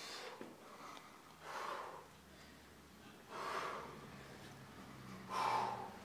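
A rock climber's forceful exhalations, three of them about two seconds apart, the last the loudest: hard breathing from the effort of moves on an overhanging wall.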